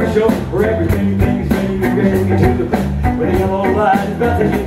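Live rock band playing: a bowed cello carrying the melody over electric bass and a drum kit with a steady beat.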